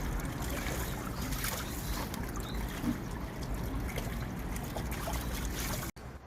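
Water trickling and splashing, with many small knocks and clicks of handling, cut off sharply near the end.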